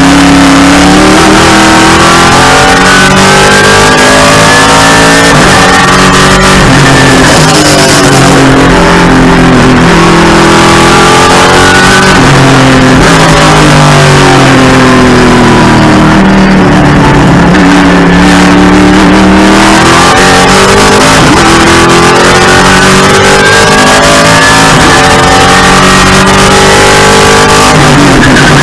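TA2 race car's V8 engine, loud inside the cockpit, climbing in pitch under acceleration and dropping under braking and downshifts, several times over as the car laps the circuit.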